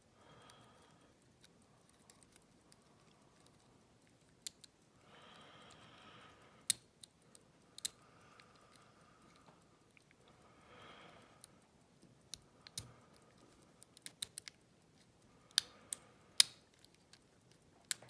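Steel hook pick and tension wrench working the pins of a six-pin brass ERA euro cylinder: scattered sharp metallic clicks and taps, with a quick run of clicks about two thirds through, as pins are being set. Two soft hissing stretches come in between.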